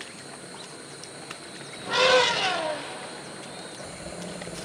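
A forest elephant gives one short, loud call about two seconds in, falling in pitch, over a steady background of insects.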